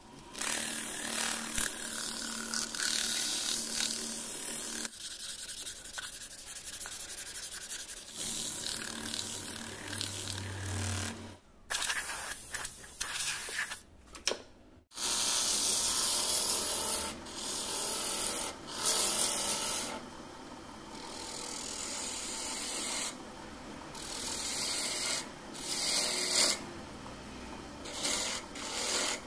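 Wood lathe running while a turning tool cuts and scrapes the spinning wood in passes, a steady hiss that stops and starts. A steady low motor hum runs under it in the first part.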